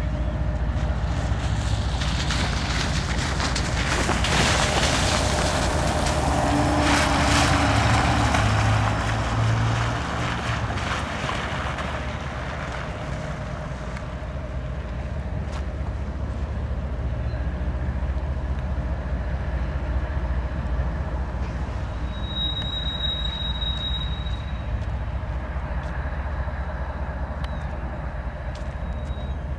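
CSX diesel-electric locomotive running and moving slowly along the track, a steady low rumble throughout. A louder rushing noise swells and fades in the first third, and a brief high-pitched squeal comes about two-thirds of the way through.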